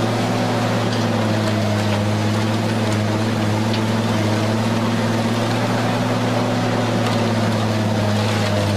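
Mobile scrap shredder running steadily with a constant low hum as it draws a wrecked car into its hopper, with a few faint cracks of metal.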